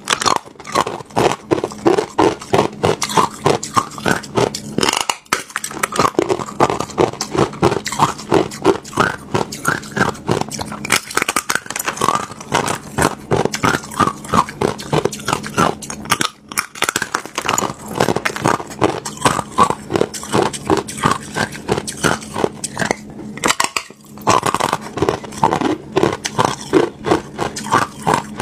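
Close-miked biting and chewing of a block of hollow ice: crisp crunches in a quick, even rhythm of about three to four a second, with a few short pauses.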